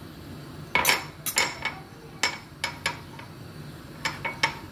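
Metal kitchenware clinking against an aluminium cooking pot: about a dozen sharp, irregular metallic knocks, each with a short ring, starting about a second in.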